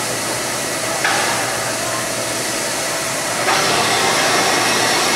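Steam hissing steadily from the standing C36-class steam locomotive 3642, growing suddenly louder about a second in and again about three and a half seconds in.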